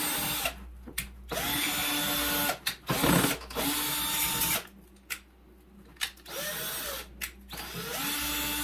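Power drill run in about five short bursts, each spinning up and winding down, driving screws into a cardboard box.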